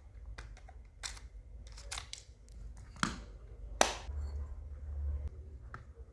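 Small mechanical clicks and taps from a handheld micro cassette recorder being handled, with two sharper clicks about three and four seconds in, followed by a low hum for a little over a second.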